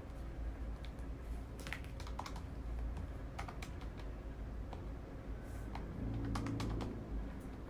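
Keys being pressed in short, irregular runs of clicks, as in typing or keying in figures. A brief low hum swells for about a second near the end.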